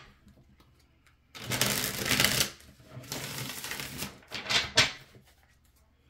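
A deck of cards being shuffled by hand: a rattling burst of about a second, a weaker second burst, then two quick sharp snaps near the end.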